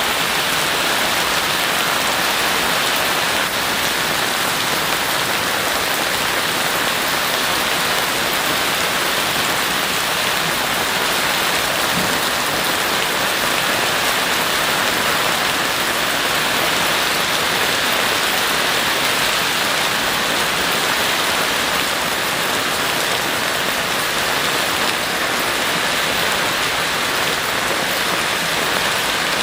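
Heavy rain falling steadily, a dense, even hiss of drops hitting surfaces.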